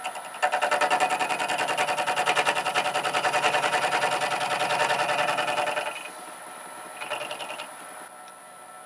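A slotting head on a small milling machine cutting with fast, even reciprocating strokes for about five and a half seconds, then stopping sharply. A brief second run follows about a second later.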